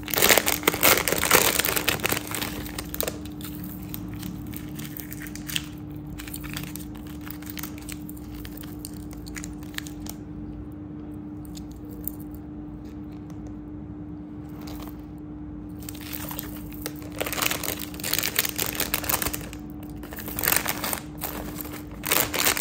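White paper jewellery packets crinkling as hands unwrap and handle them, busiest in the first two seconds and again near the end, with a quieter stretch in the middle. A steady low hum runs underneath.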